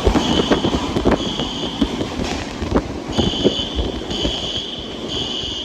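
An electronic alarm beeping in groups of three half-second beeps, the pattern of a fire alarm's evacuation signal. Beneath it come many irregular knocks and low thumps, which are the loudest part.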